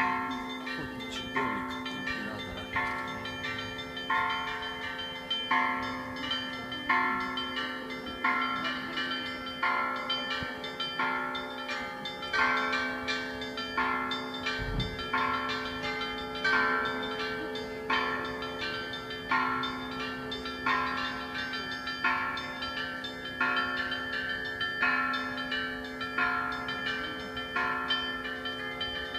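Church bells ringing: higher bells struck in a steady repeating pattern, a little more than once a second, over the lingering hum of a lower bell that is struck again every few seconds.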